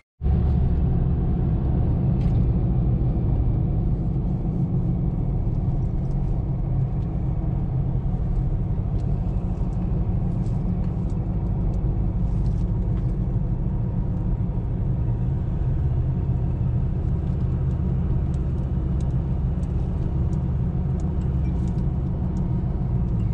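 Vehicle engine running steadily while driving, with a deep, even rumble of engine and road noise and a few faint ticks above it.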